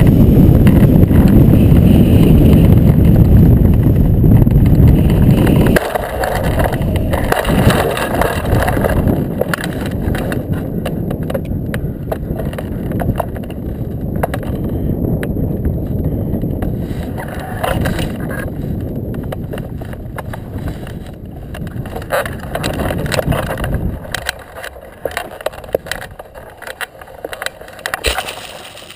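Loud wind rush on a hang glider's keel-mounted camera during the final low glide, cutting off abruptly about six seconds in as the glider touches down hard. After that comes uneven rumbling with scattered knocks, scrapes and grass rustling as the glider sits on the ground and is handled, growing quieter near the end.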